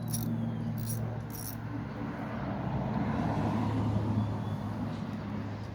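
A few light metallic clicks from tools working the battery terminal in the first second and a half. Then a passing vehicle's noise swells and fades over a few seconds, over a steady low hum.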